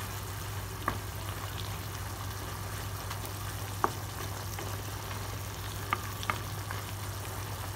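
Chicken and nemagari bamboo shoots sizzling in a non-stick frying pan over a steady low hum, with a wooden spatula stirring and clicking against the pan four times.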